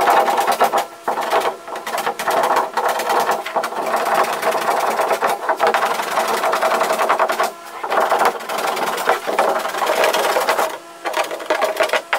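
Stanley No. 4 hand plane pushed in repeated strokes along a plywood chine edge, its blade shaving the wood with a rapid clicking as it knocks off the joint's teeth. There are two short pauses between strokes, after about seven and a half and eleven seconds.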